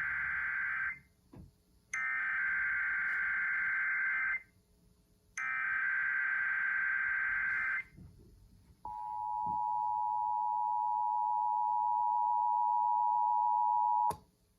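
Emergency Alert System test signal: three bursts of buzzing digital data tones (the SAME header), the first shorter than the other two, followed by the steady two-tone EAS attention signal for about five seconds, which cuts off with a click.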